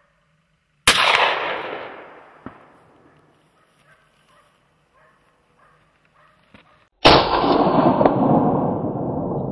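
Two gunshots from a hunting gun at wild boar, about six seconds apart, each a sharp crack followed by a long rolling echo through the forest. The second echo is louder and longer.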